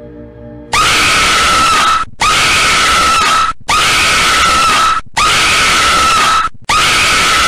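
Low eerie music, then less than a second in a very loud, harsh jumpscare scream sound effect starts. The same scream repeats in near-identical stretches of about a second and a half, each broken off by a brief gap.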